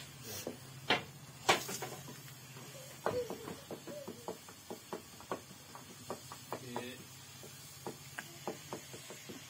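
A metal ladle stirring a steaming aluminium cooking pot on a wood-fired mud stove, giving irregular sharp clicks and knocks against the pot. Two louder knocks come about a second in, then lighter clicks once or twice a second.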